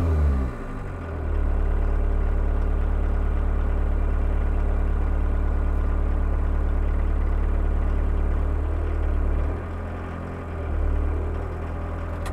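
A VW 1.6-litre four-cylinder turbodiesel idling with a steady low beat at a raised idle speed, set on the injection pump for cold weather. Its level dips briefly twice, once just after the start and once about ten seconds in.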